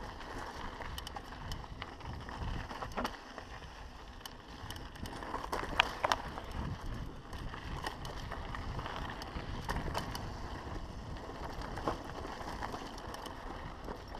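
Mountain bike rolling fast down a dry dirt trail: tyres crunching over dirt, leaf litter and loose stones, with the bike rattling and a scatter of sharp knocks from bumps, the loudest about six seconds in.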